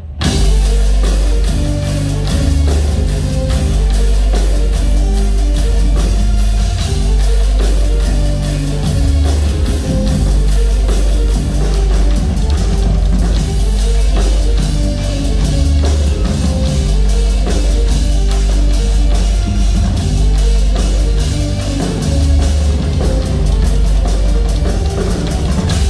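Live rock band playing loudly: a drum kit keeps a steady heavy beat under electric guitar and deep bass notes, with no singing.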